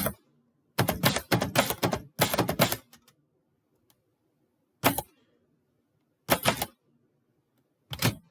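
Typewriter keys striking in quick bursts of clicks, separated by short pauses, as a poem is typed.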